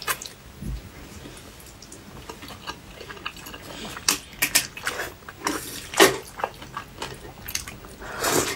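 Close-miked eating sounds of noodles with melted cheese: quiet chewing, then a few sharp wet mouth clicks and smacks from about four seconds in, and a longer slurp as noodles are drawn into the mouth near the end.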